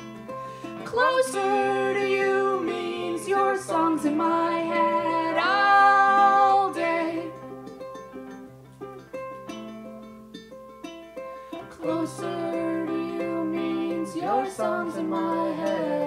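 Ukulele and acoustic guitar playing a slow song, with a woman singing long, gliding held notes from about a second in and again near the end, the instruments continuing alone in between.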